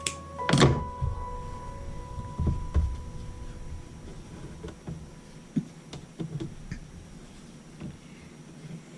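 Sewing machine's low running hum stops about half a second in with a loud clack, followed by scattered light knocks and clicks as the machine and fabric are handled.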